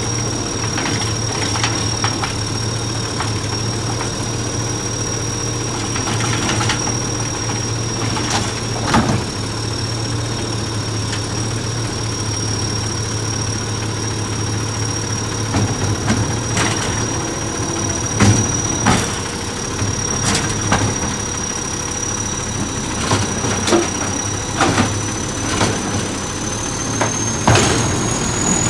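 Natural-gas McNeilus automated side-loader garbage truck idling, with a steady high whine that rises slightly near the end. Scattered clunks and knocks come from the gripper arm as it rights a tipped-over plastic recycling cart and sets it down, more often in the second half.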